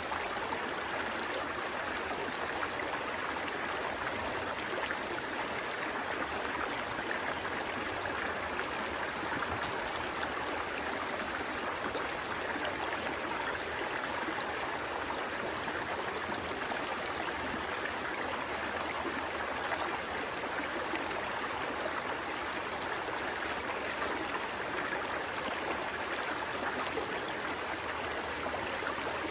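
Steady, unbroken rush of flowing water, like a stream running over rocks.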